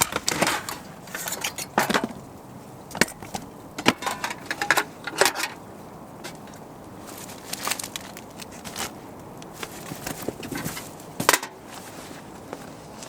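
Irregular knocks, clicks and rustling from camping gear being handled, as a modified propane heater is got out to be tried. The sharpest knocks come about four seconds in and again near the end.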